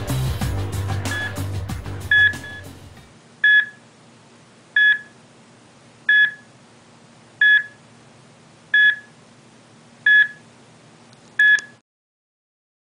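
Background music fading out over the first three seconds, then a single electronic beep repeating evenly about every second and a third over a faint steady hum. The beeps stop abruptly near the end.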